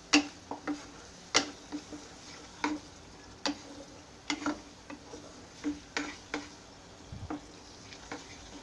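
Wooden spatula stirring and scraping a thick spice paste in a non-stick pan, knocking against the pan about one to two times a second in an uneven rhythm. Under the knocks is a faint sizzle of the masala frying in oil until the oil separates.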